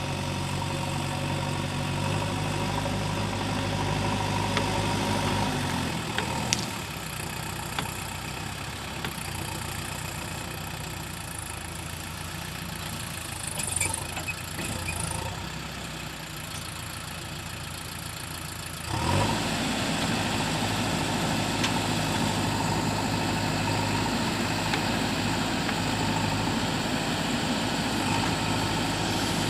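JCB 3DX backhoe loader's diesel engine running at a steady speed. About six seconds in the engine sound drops quieter. It jumps back louder about nineteen seconds in.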